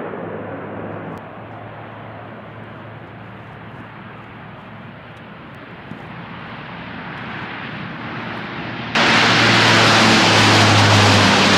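Lockheed Martin C-130J's four turboprop engines running, a steady low propeller drone with rushing air noise that slowly grows louder, then jumps suddenly to a much louder rush about nine seconds in.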